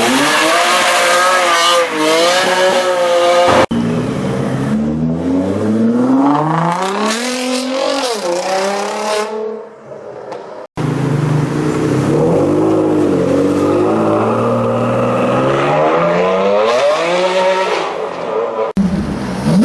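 Jaguar F-Type R's supercharged V8 revving hard and accelerating, its pitch climbing and dropping over several cut-together passes, with one brief lull just before the middle.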